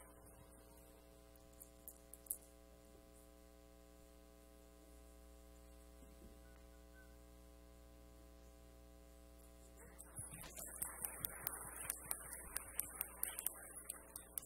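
A faint steady hum of held tones. Then, about ten seconds in, an audience starts clapping in applause and keeps on through the end.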